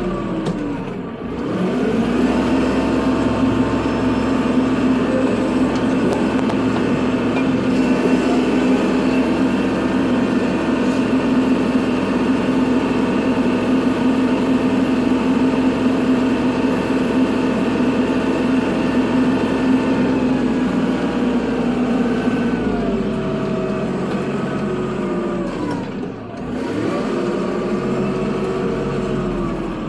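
Kubota tractor's diesel engine working under load at high revs. Its pitch dips and climbs back about a second in, eases down a little past two-thirds of the way through, and dips and recovers again near the end.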